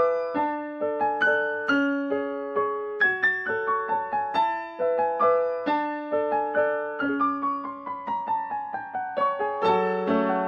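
Background piano music: a steady run of single struck notes, each fading away, a few per second.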